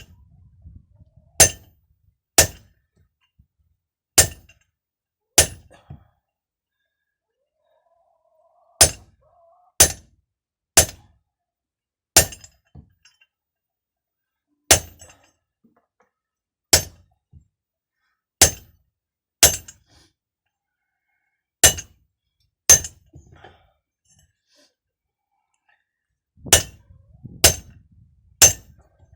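Metal hammer blows on a steel hose fitting, about seventeen sharp ringing strikes roughly a second apart, often in pairs, with a few short pauses. This is the sound of a hydraulic hose end being crimped by hand instead of in a crimping press.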